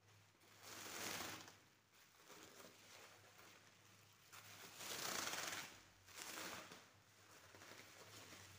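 Bubble wrap rustling and crinkling as it is handled and pulled off a package, in several swells, the loudest about five seconds in.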